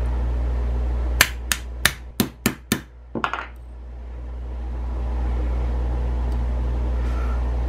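Brass-headed hammer tapping a pin punch to drive the hammer pin out of a Savage 720 shotgun's trigger assembly: about six quick metallic taps starting a second in, then two lighter ones, over a steady low hum.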